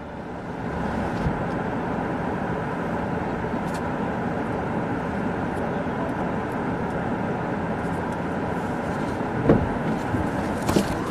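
Steady noise from inside a vehicle, with a few short sharp knocks near the end.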